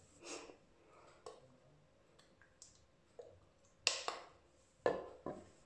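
A few scattered light clicks and taps from handling small items, with two sharper clicks about four and five seconds in.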